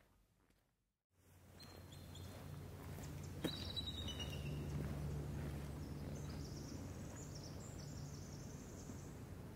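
Outdoor ambience: a steady low hum with small birds chirping over it, a few short chirps about a second and three seconds in, then a higher, thin twittering song from about six to nine seconds in. A single sharp click sounds about three and a half seconds in.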